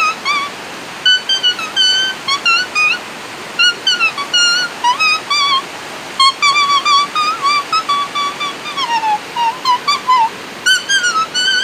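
A vallenato melody played on a lemon leaf pressed to the lips: a high, reedy whistle in short sliding phrases. The steady rush of river rapids runs underneath.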